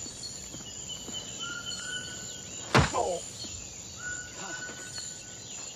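One sharp thud of a bare leg kicking a tree trunk about three seconds in, with a brief grunt right after it. Insects and birds chirp steadily in the background.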